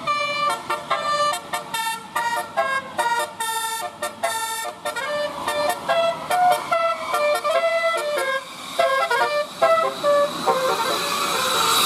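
Telolet basuri melody horn playing a quick tune of many short notes at changing pitches. Near the end a steady hiss rises beneath it.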